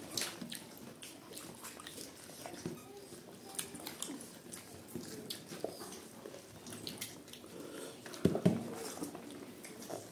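People chewing and biting food close to the microphone, with frequent wet smacks and clicks, and one louder thump about eight seconds in.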